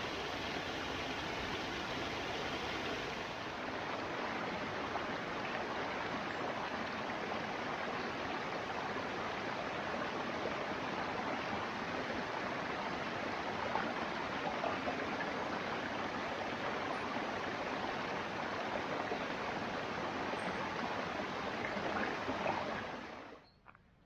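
Forest stream rushing over rocks and small cascades, a steady water noise. It cuts off abruptly near the end.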